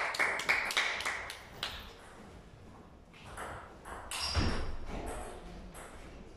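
Table tennis ball striking bats and table: a run of quick, light clicks through the first two seconds, then a few more hits a little past the middle as a point gets under way.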